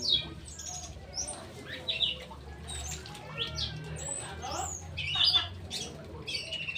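Straw-headed bulbul (cucak rowo) calling: a string of irregular short chirps and squawks, over a low steady hum.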